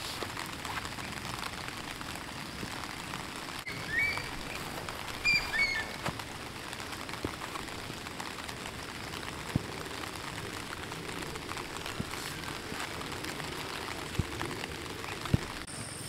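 Steady rain falling, with scattered single drops hitting sharply. A bird chirps a few times about four to six seconds in.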